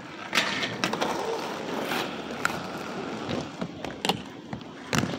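Inline skate wheels rolling on a concrete skatepark surface, with scattered sharp clacks and knocks of the skates striking the ledge and ramp, the first about half a second in.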